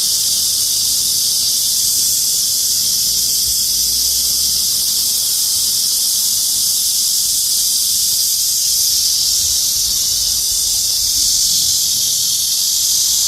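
Cicadas buzzing, a loud steady high-pitched drone like a hiss that does not let up: the males' calling song for attracting a mate.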